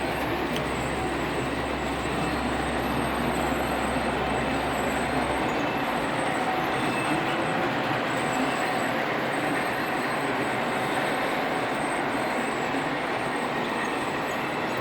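A train running on its track, a steady rattling rumble, with a low hum underneath that cuts off about five seconds in.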